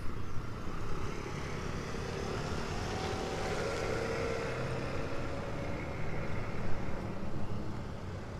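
Motorcycles coming along the road, their engines running and getting a little louder as they approach.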